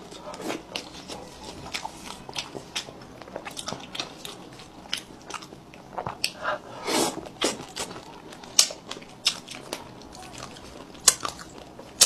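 A person chewing and biting into fish, with many sharp wet clicks and smacks of the mouth and a longer, louder wet eating sound about seven seconds in.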